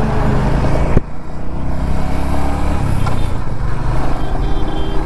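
Royal Enfield Hunter 350's single-cylinder engine running on the move, with wind noise on the microphone. The sound changes abruptly about a second in, and then the engine note rises.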